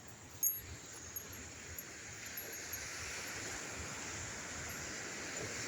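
Sea surf washing on the shore: an even hiss that slowly grows louder, with a short knock about half a second in.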